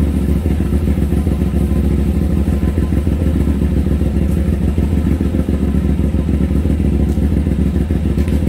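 Sport motorcycle engine idling steadily on its rear paddock stand, with a fast, even low pulse and no revving.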